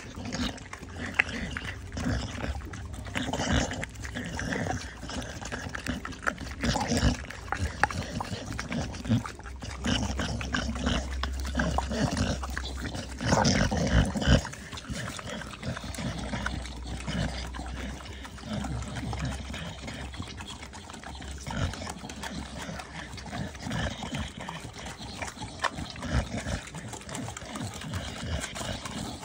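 American pit bull licking and slurping yogurt from a small plastic cup: an irregular run of quick, wet licks and smacks.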